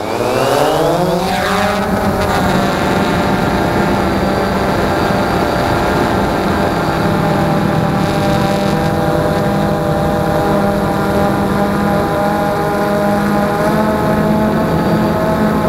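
DJI Phantom 2 quadcopter's electric motors and propellers spinning up and lifting off, heard from on board: a whine that rises in pitch over the first two seconds, then a steady buzzing hum as it climbs.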